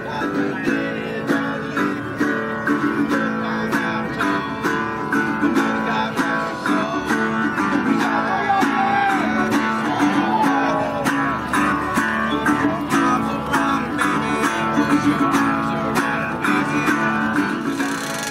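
Acoustic guitar music, strummed in a steady rhythm.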